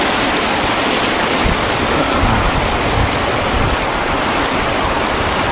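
Trout creek water running, a loud, steady rush.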